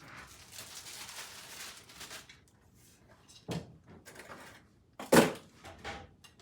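Rustling of packaging as lamp parts are unpacked, then a knock and, a little past five seconds in, a louder thud as a heavy piece, likely the lamp base, is set down.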